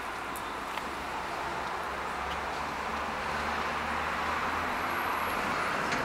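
Steady outdoor background noise: an even rushing sound with a low rumble that slowly grows louder, and a few faint clicks.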